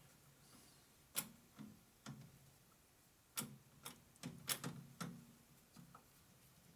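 Irregular sharp metal clicks and taps, about ten of them, with a cluster of quick ones midway, as parts are handled and adjusted in a metal lathe's chuck.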